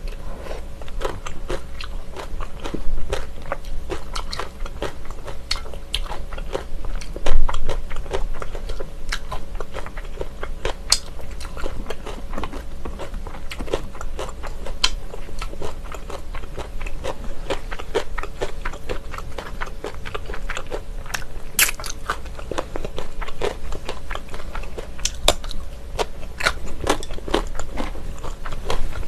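Close-miked eating sounds: chewing and mouth smacks while eating Chinese glass noodles and vegetables in mustard sauce, with many small clicks throughout and one louder smack about seven seconds in.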